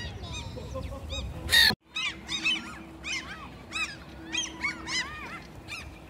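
A flock of black-headed gulls calling, many short rising-and-falling cries overlapping one another. The sound drops out for a moment just before two seconds in, then the calling goes on.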